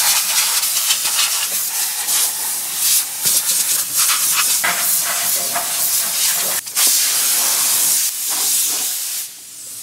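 Pneumatic air tool running on a compressed-air hose, its air exhaust hissing loudly as it works the utility bed's fasteners loose, with a brief break about two-thirds of the way through and a drop in level near the end.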